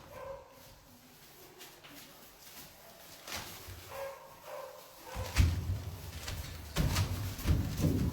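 Puppies in shelter kennels giving a few short, faint yips and whimpers, followed in the second half by a run of loud knocks and rattles.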